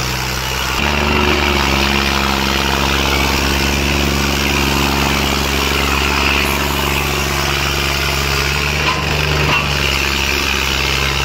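Tractor diesel engine running steadily; its note rises and gets louder about a second in, then holds.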